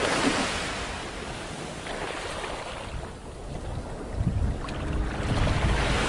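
Waves washing with wind, a steady rushing wash. It swells at the start, thins out around three seconds, and builds again from about four seconds.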